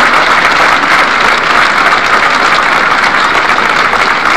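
A large crowd applauding, a dense, steady clapping that holds at a loud level.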